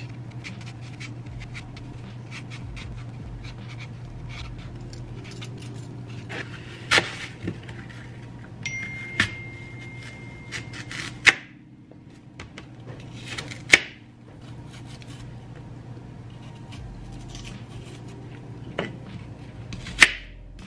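An apple being peeled with a hand peeler and then sliced with a small knife on a plastic cutting board: soft scraping and small clicks, with a few sharp knocks of the blade on the board. A steady low hum runs underneath, and a thin steady tone sounds for about two seconds near the middle.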